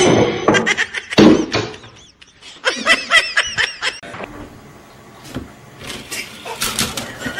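A person laughing, with a quick run of repeated laughs about three seconds in. A loud thump comes about a second in.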